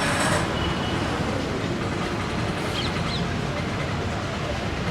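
Steady motor-vehicle and traffic noise with no clear engine note, with a short hiss at the very start.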